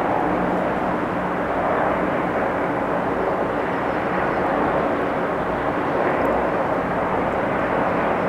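Mi-8 transport helicopter's engines and rotor heard as a steady, distant drone.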